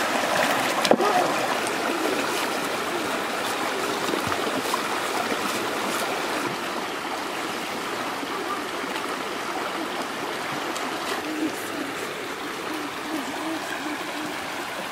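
Shallow river water rushing steadily over rocks, with splashing near the start as water is scooped and thrown by hand.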